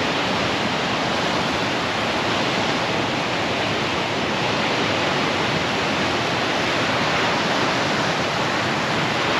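Surf breaking and washing up a sandy beach: a steady rushing noise.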